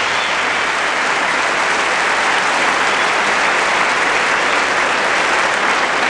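Large concert audience applauding steadily.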